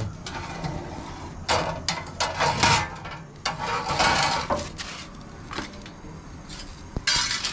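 Metal wood-chip tray scraping and clattering as it is slid out of a gas smoker's firebox, in several short bursts.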